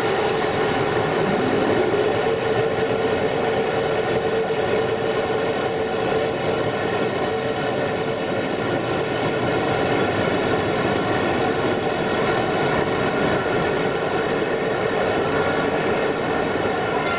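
Railway locomotive running with a steady drone, its tone rising briefly about a second in.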